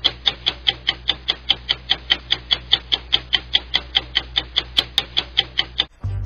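Clock-ticking sound effect: fast, even ticks about five a second over a low steady hum, cutting off abruptly near the end as music comes in.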